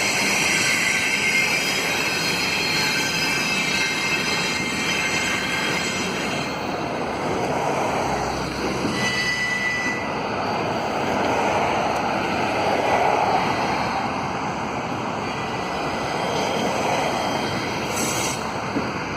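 Wheels of a Canadian Pacific double-stack container train squealing high against the rails as the long train rolls around a curve, the wheels straining in the curve. The squeal is strongest for the first several seconds, then gives way to steady rolling noise, with a brief squeal again about halfway through.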